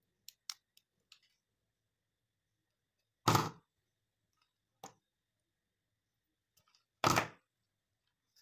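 Cutting pliers and small hand tools being handled on a wooden worktable while yellow insulation sleeving is cut to size. A few faint clicks come first, then two sharp knocks about four seconds apart with a lighter one between.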